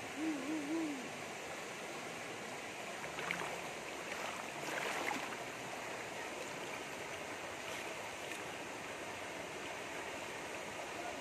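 Shallow rocky stream flowing steadily, with splashing in the water around three to five seconds in as a person wades and works with his hands in it. A low, wavering hooting call sounds in the first second.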